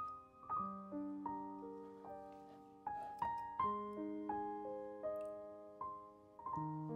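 Background music: a slow solo piano melody over held chords, each note struck and left to ring and fade.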